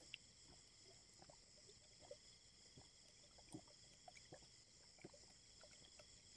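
Near silence: a faint, steady high-pitched drone of night insects such as crickets, with scattered faint soft ticks.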